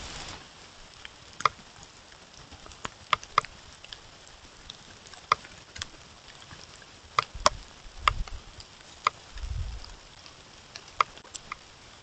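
Roosevelt elk walking on the forest floor: irregular sharp clicks and snaps of hooves and twigs, with heavier low thuds around eight and nine and a half seconds in as it passes close by.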